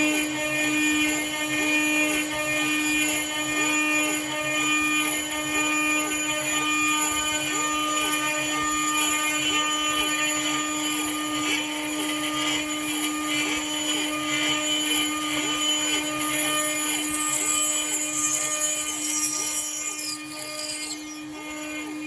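Milling machine running with an end mill cutting 17 mm holes in an aluminium structural profile: a steady hum with a pitched whine and a fast repeating cutting pattern. It gets quieter near the end.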